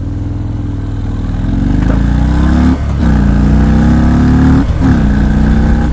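Harley-Davidson FXDR 114's Milwaukee-Eight 114 V-twin accelerating hard from a standstill. The engine note rises, breaks briefly for an upshift about three seconds in, rises again and shifts once more near the end.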